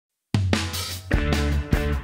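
Intro music with a drum kit and bass, starting abruptly a moment in after a brief silence, with strong drum hits.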